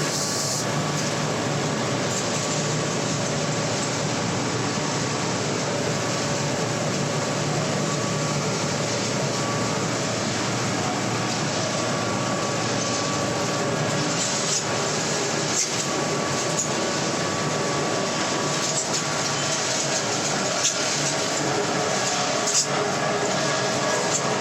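Wood pellet mill running steadily under load, a dense mechanical noise with a constant hum, and a few sharp clicks in the second half.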